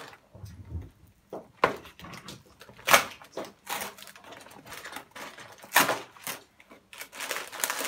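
A cardboard toy box being opened by hand, with a few sharp snaps and scrapes of the cardboard flaps. Near the end comes the crinkling rustle of the plastic parts bags inside.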